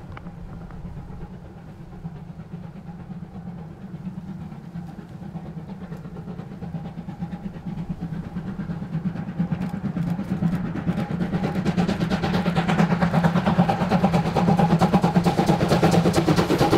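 C12 steam locomotive approaching under steam, its rapid exhaust beat growing steadily louder as it nears.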